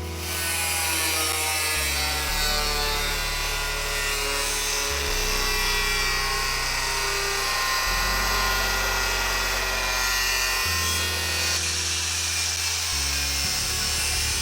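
Background music with a bass line over a tool sawing through 3 mm steel plate.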